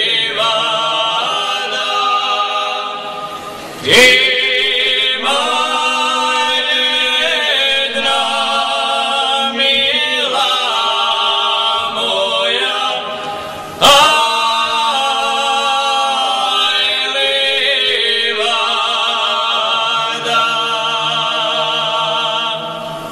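Male folk choir singing a cappella in close harmony, holding long chords. New phrases come in loudly about four seconds in and again about fourteen seconds in.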